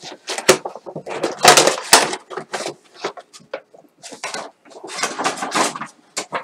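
Toy packaging being pulled and torn open by hand: irregular crackling and tearing rustles, loudest about a second and a half in.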